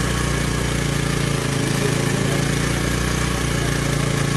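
Engine on a wooden fishing boat idling steadily: an even, low hum that does not change.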